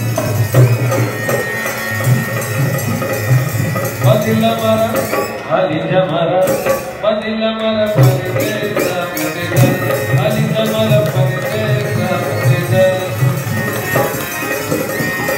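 Live Rajasthanti folk music accompanying a string-puppet show: steady hand-drum beats under a wavering melody line.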